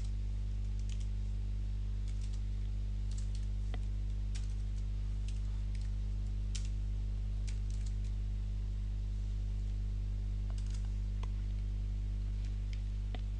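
Computer keyboard keystrokes, scattered and unhurried, as a short line of code is typed. They sit over a steady low electrical hum, which is the loudest thing.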